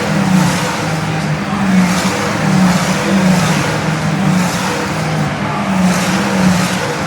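A field of Ferrari Challenge (Coppa Shell) race cars passing one after another at full throttle, their engines swelling and fading in a continuous stream.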